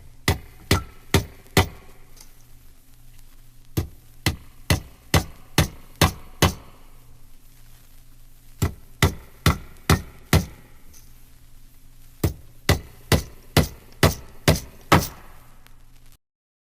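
Sharp knocks or blows struck in four runs of five to seven strokes, about two a second, with short pauses between the runs, over a low steady hum. The sound stops abruptly just before the end.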